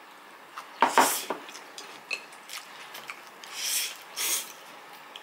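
Noodles being slurped off chopsticks: a loud slurp about a second in and two more near the end, with a few light clicks between.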